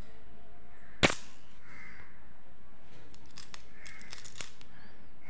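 Loose metal coins clinking against one another as a hand sorts through a pile: one sharp clack about a second in, then a quick run of light clinks a little past the middle.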